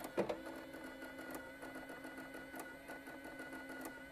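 Sharp XE-A107 cash register's impact receipt printer running through a test receipt: one sharp key click near the start, then a steady motor hum with fine rapid ticking as the receipt feeds out.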